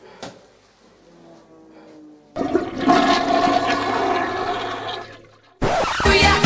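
Faint music, then a sudden loud rush of water lasting about three seconds that fades away; loud pop music cuts in near the end.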